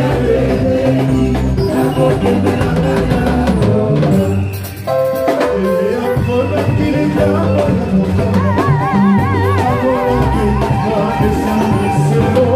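Church praise band playing a song with drum kit and bass under singing. In the second half a long wavering note with vibrato is held for a second or two.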